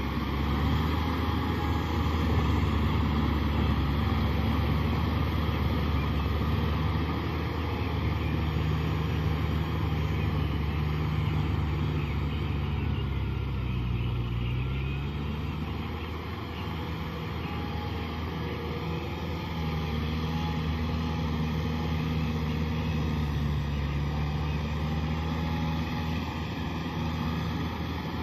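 Kubota M6040 SU tractor's diesel engine running steadily as it cultivates a flooded rice paddy. Its pitch dips briefly about halfway through, and it grows fainter as the tractor moves away in the middle, then louder again toward the end.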